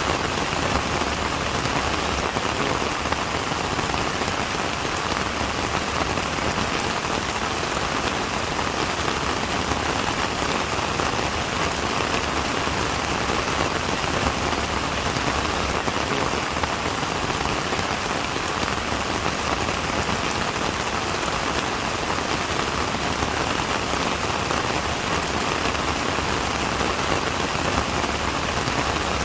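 Steady rain falling and pattering on a surface, a dense even hiss of many drops with no let-up.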